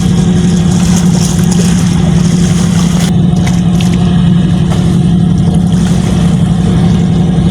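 An engine running steadily with a constant low hum that does not change in pitch.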